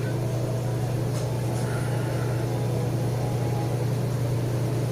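Steady low hum of a motor or machine running, even and unchanging.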